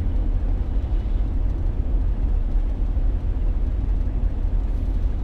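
Steady low rumble of a vehicle driving at low speed, heard from inside the cab: engine and road noise.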